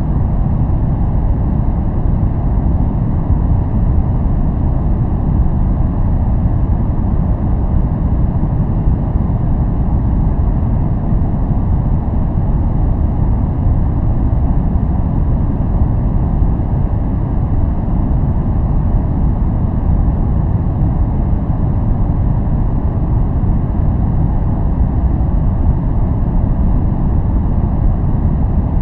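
Continuous noise for focusing, deep and rumbling rather than hissy, with most of its weight low down and little treble. It holds completely steady, with no changes or separate sounds.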